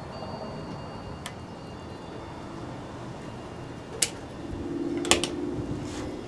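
Hand tools clicking and clattering as they are picked up and set down on a cloth-covered table, with one sharp click about four seconds in and a louder double click about a second later. A low steady hum comes up in the last second and a half.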